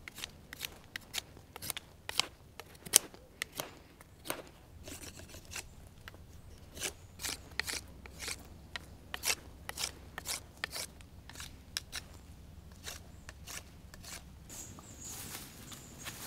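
Knife cutting wild mushrooms by hand: a run of sharp, crisp clicks and snaps at irregular spacing, about two a second, thinning out after about ten seconds.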